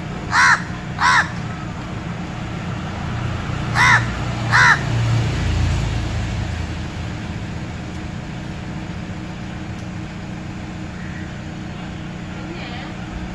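Large-billed crow cawing: two caws in quick succession, then another pair about three seconds later, over a steady low rumble.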